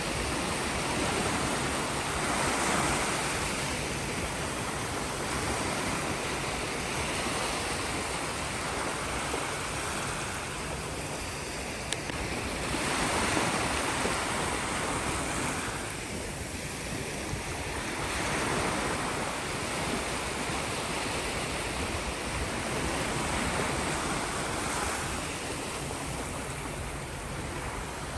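Sea surf: waves breaking and washing up the shore, the rush swelling and easing every few seconds.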